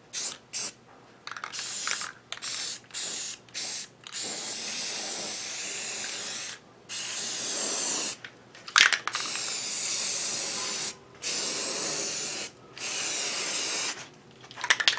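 Aerosol spray can of primer hissing in bursts: a run of short squirts, then several longer sprays of one to two seconds each.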